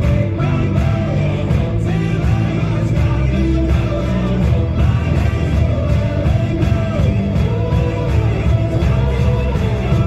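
Background song with a singing voice over a steady beat.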